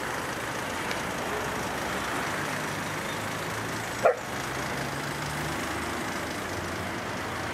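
Steady vehicle engine and street noise, with one short sharp sound about four seconds in.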